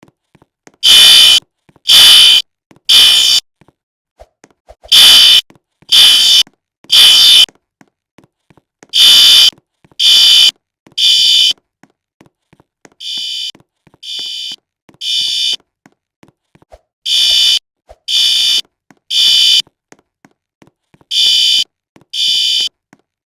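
Fire alarm sounder giving harsh, high-pitched beeps in groups of three, about a second apart, with a longer pause between groups. This is the temporal-three evacuation signal. One group midway through is noticeably quieter than the others.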